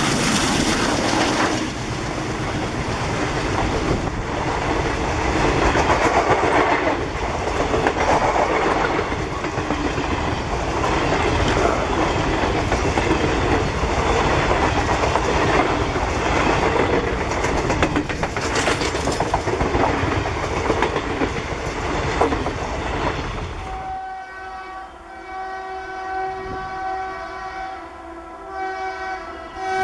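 An express train's passenger coaches pass close by at speed, wheels clattering rhythmically over the rail joints with a steady rush of noise. Near the end the train noise stops and a steady multi-note horn sounds.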